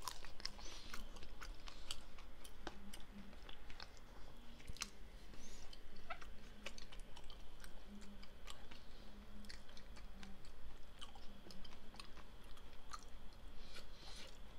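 A person chewing and eating a strawberry muffin, with many small, irregular mouth clicks and soft crunches.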